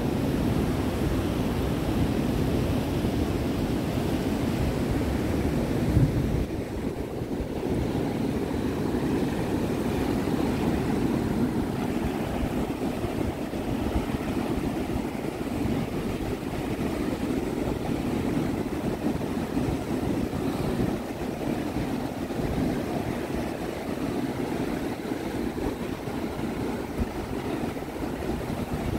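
Steady rush of ocean surf breaking on the beach, with wind buffeting the microphone in a low rumble; a brief low thump about six seconds in.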